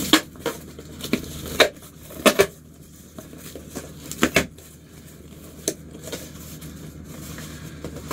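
A stapled cardboard box being pried open by hand: a run of sharp pops and snaps as the flaps are pulled free of the staples, with cardboard scraping and crinkling in between. The pops stop after about six seconds, leaving only faint rustling.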